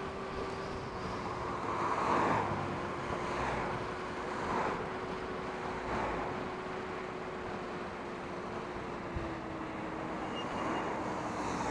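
Inmotion V11 electric unicycle being ridden: a thin, steady whine from its hub motor under the rush of wind on the microphone. The whine sinks slightly in pitch near the end as it slows.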